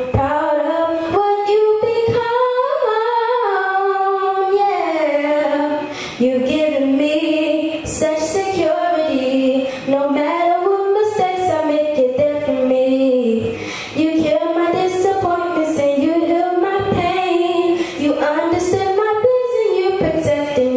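A teenage girl singing solo into a microphone, holding long notes that slide up and down. She sings in phrases with short breath pauses about every four seconds.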